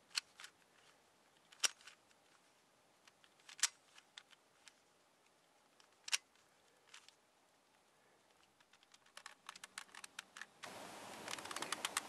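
Plastic puzzle cube (a Dayan ZhanChi speedcube) being turned by hand: scattered light clicks of its layers, then a quick run of small clicks near the end.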